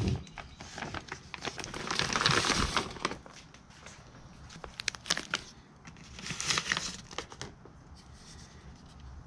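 Clear plastic bag crinkling and rustling as a motorcycle exhaust muffler is slid out of it, in two bouts, with a few light knocks and clicks in between.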